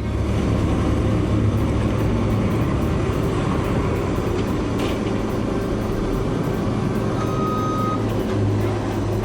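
A motor vehicle running steadily, a loud even engine-and-road noise with a low hum, with a brief high beep about seven seconds in.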